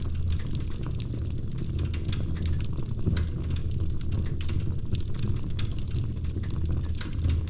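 Wood fire burning in a fireplace, crackling with many quick sharp pops over a low steady rumble.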